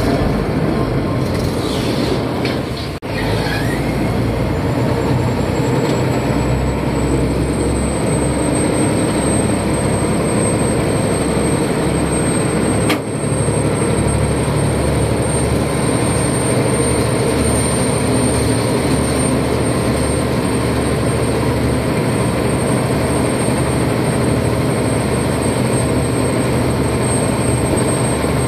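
Khlong Saen Saep canal express boat's engine running loud and steady under way, with water rushing past the hull. A thin high whine rises about four seconds in and then holds.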